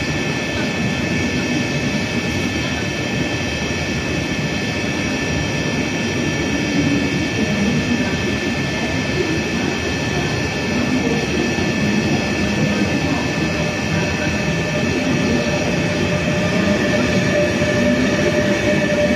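Double-deck regional push-pull train pulling out past the platform: steady rumble of wheels on rail, with steady high whining tones above it. An electric locomotive passes at the rear near the end, and a further steady tone comes in with it.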